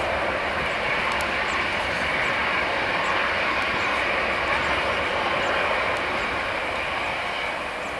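Jet engine noise from an Airbus A330-243's Rolls-Royce Trent 772B turbofans at takeoff power during the takeoff roll: a steady rush that eases slightly near the end as the airliner lifts off.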